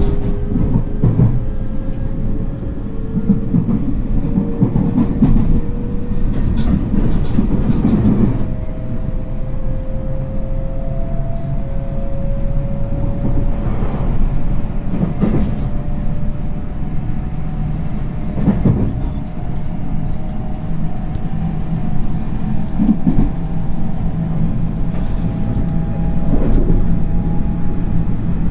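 Interior running sound of a JR West 225 series 5100 subseries electric train gathering speed, its traction motor whine climbing slowly and steadily in pitch over a steady rumble. A few sharp knocks from the wheels and rail joints come at irregular intervals.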